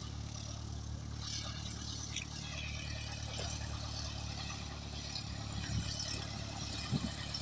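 Cessna 172 Skyhawk SP's four-cylinder piston engine and propeller running steadily at a low idle while taxiing in to park.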